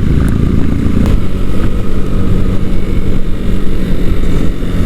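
Small 125cc motorcycle engine running steadily on the move, with rushing wind noise.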